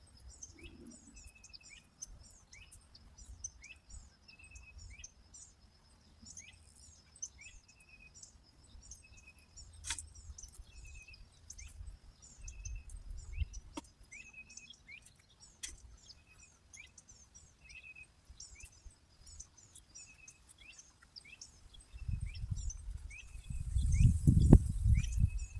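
Songbirds chirping over and over in short repeated calls, with a steady high insect drone behind them. Near the end a loud low rumble rises up.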